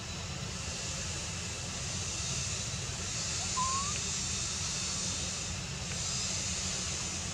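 Outdoor forest ambience: a steady high hiss that swells and fades twice, a low rumble underneath, and one short rising whistle-like call about three and a half seconds in.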